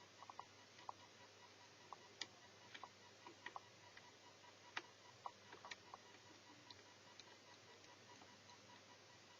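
Faint, irregular small clicks and ticks from handling an Asus EeePC netbook's small parts and tools during disassembly. They come thickly in the first six seconds, then thin out over near silence.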